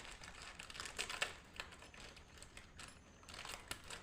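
Faint, irregular light clicks and crinkles of a plastic sweets packet being handled.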